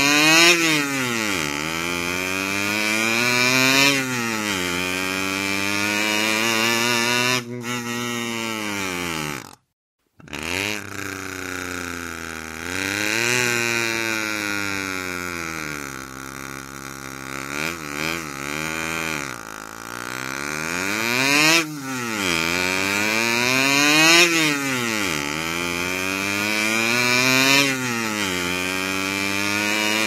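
Cartoon rattling motorbike sound effect: a pitched engine note that revs up and falls back again and again, with a brief silent break about ten seconds in.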